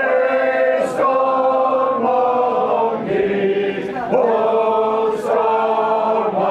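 A man singing a traditional calling-on song for a rapper sword dance in full voice, unaccompanied, holding long notes that change pitch every second or so.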